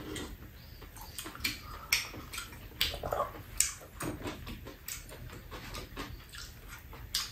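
Close-up eating sounds: chewing and lip-smacking in short, irregular clicks, with a sip from a mug.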